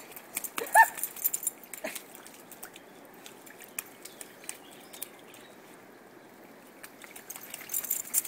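Flat-coated retriever puppy splashing and pawing in a muddy rain puddle: scattered splashes and patters of water, busiest in the first two seconds and again near the end, with a brief high whine about a second in.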